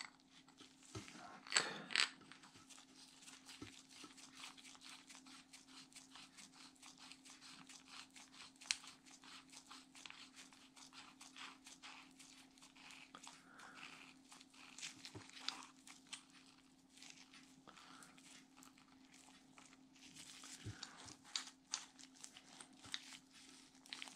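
Faint metallic ticking and scraping of a steel axle and cone being fitted and threaded by hand into a Favorit coaster-brake rear hub, with the rustle of nitrile gloves. A few sharper clicks stand out, and a low steady hum lies underneath.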